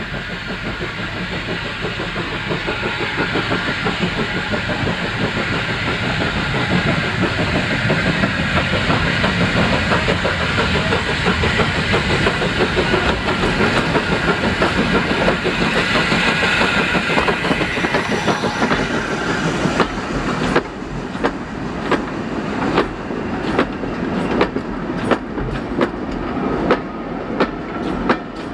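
Avonside saddle tank steam locomotive approaching with a train of vintage six-wheel coaches, its noise building steadily as it nears. After the engine has gone by, the coach wheels clack sharply over the rail joints, one or two clicks a second.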